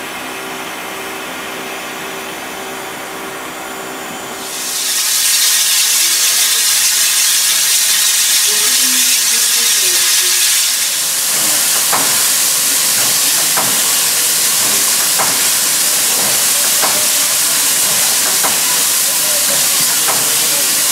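Er-class 0-10-0 steam locomotive: a steady hum, then about four seconds in a loud hiss of escaping steam bursts in and keeps going. From about twelve seconds on, sharp knocks come about once a second under the hiss.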